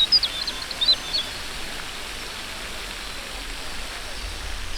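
A songbird singing a quick run of short, high notes in the first second, over a steady outdoor hiss.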